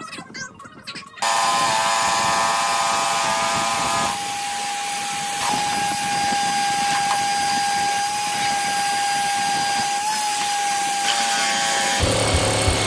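Power drill driving a screw into a butcher-block countertop, its motor whining at a steady pitch for about ten seconds after starting about a second in.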